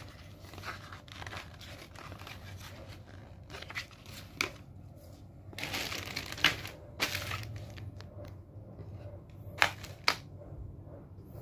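Paper booklets and a plastic accessory bag rustling and crinkling as they are handled, with a few sharp clicks and taps, the loudest near the end.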